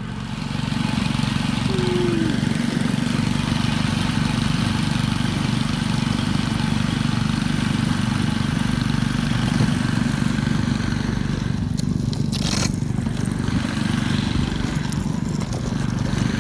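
Small outboard motor on a scratch boat running steadily as it drives the boat across ice, with a constant hiss of ice being thrown up behind it. A short loud scrape or bang about three quarters of the way through.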